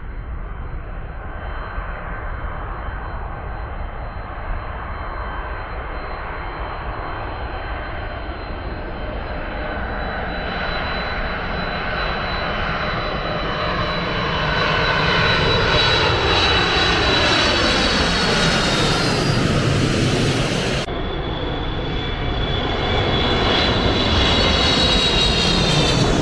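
Jet engines of a twin-engine freighter airliner on final approach, growing louder as it nears and passes low overhead, with high whining tones that fall in pitch as it goes by. The sound breaks off abruptly about three-quarters of the way through and comes back just as loud, the whine falling again near the end.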